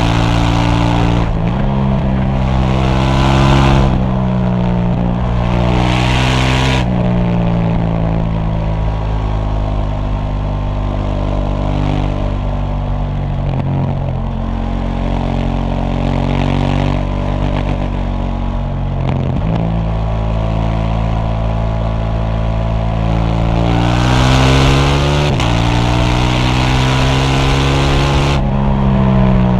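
KTM 790 Duke's parallel-twin engine through its stock exhaust, pulling through the gears: the pitch climbs and drops back at each of several upshifts in the first seven seconds. It then runs at steady revs for a long stretch, before climbing again with two more upshifts near the end.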